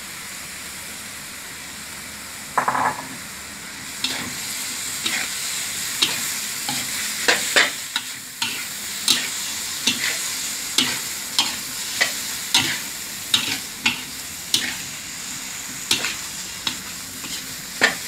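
Sliced bamboo shoots and pork sizzling in a steel wok while a metal spatula stir-fries them. There is a single ringing clink about two and a half seconds in. From about four seconds on, the spatula scrapes and clacks against the wok roughly every half second over louder sizzling.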